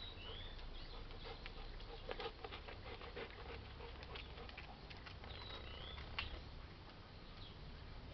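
A dog's paws tapping and scuffing on concrete close by as it walks past, a quick patter of steps, with a bird chirping twice.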